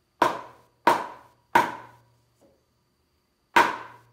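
Hammer blows on a heavy sawn-timber frame: three strikes about two-thirds of a second apart, then a fourth about two seconds later, each with a short ringing tail.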